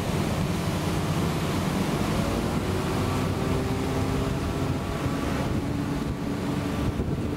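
Motorboat running under way towing a tube, with water rushing in the wake and wind buffeting the microphone.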